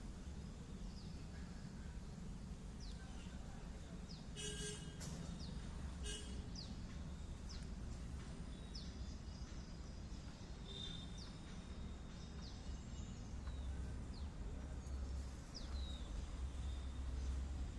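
Small bird chirping over and over, short high notes that drop in pitch, about one a second, over a steady low rumble.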